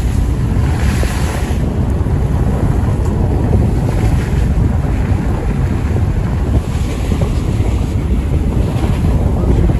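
Strong storm wind buffeting the microphone: a loud, steady rumble with gusts that swell and ease every few seconds.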